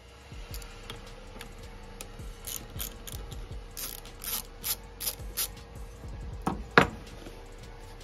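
10 mm socket being worked on the bottom bowl bolt of a generator's carburetor to remove it: a run of separate clicks and rubbing, with one sharper, louder click about seven seconds in.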